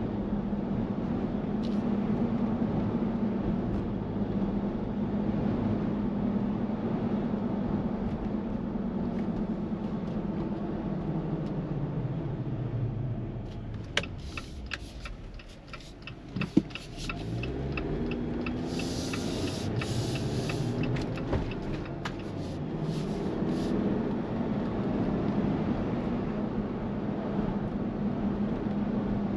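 A 2023 Jeep Wrangler Rubicon's 2.0-litre petrol engine running on the move with road noise. Near the middle it slows almost to a stop, with a run of sharp clicks and a knock. It then pulls away, the engine note rising as it accelerates.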